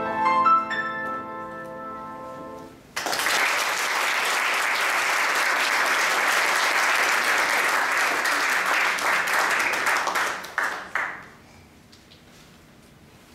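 A grand piano's final notes ring out and fade. About three seconds in, audience applause breaks out suddenly, carries on for around eight seconds and dies away near the end.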